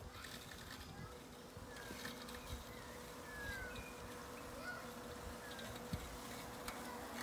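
Husqvarna Automower 535 AWD robotic mower running across the lawn, its motor giving a faint steady hum, with birds chirping now and then.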